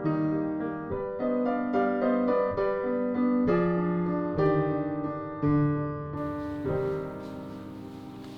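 Background piano music: a gentle melody of struck notes, each ringing and decaying, that fades out over the last second or two.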